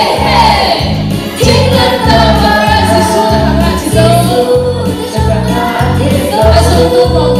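A woman's voice sings a song into a microphone over a backing track with a steady bass beat, about two beats a second.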